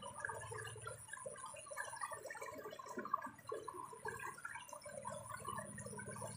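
Water sloshing and gurgling in a dense, irregular patter, over a low hum and a faint steady high whine.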